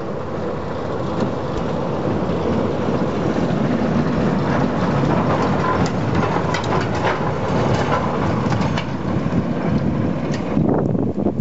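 Small diesel shunting locomotive running past close by: a steady engine rumble with wheels on rail that grows a little louder as it passes, with a few sharp clicks and brief squeaks in the middle.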